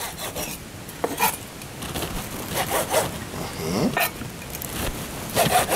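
Knife cutting sausages on a chopping board: a few short sawing strokes and light taps of the blade on the board.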